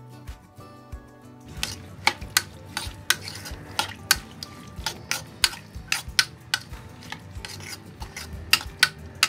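Steel spoon stirring diced turnip in a hammered brass kadhai, clinking and scraping against the pan in sharp, irregular strikes that begin about a second and a half in.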